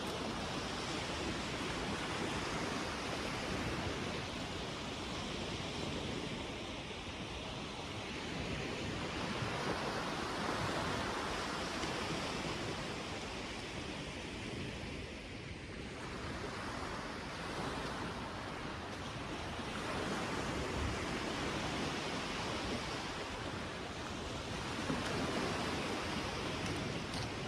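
Sea waves washing onto the beach: a steady rush that swells and eases every few seconds.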